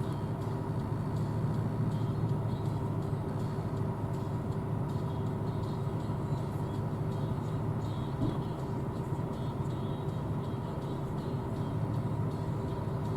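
John Deere S680 combine running steadily: a constant low machine hum with a few steady tones over it, no change in speed.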